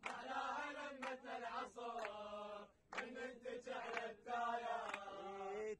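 A group of men chanting a protest chant together in long held phrases, clapping along, with a short break nearly three seconds in.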